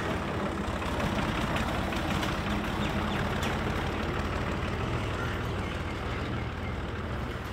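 An engine idling steadily, a constant low hum.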